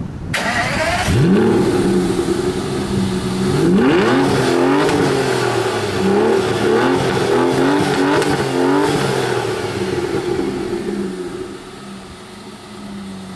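Aston Martin DB9 Le Mans Edition's 5.9-litre V12 being revved through its twin exhausts. The engine note comes in sharply and rises about a second in, climbs steeply near four seconds, then gives a string of quick throttle blips. From about nine seconds it settles to a steadier, quieter idle.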